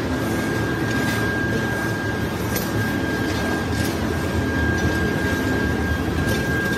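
Steady din of factory machinery with a constant high whine, and a few faint knocks.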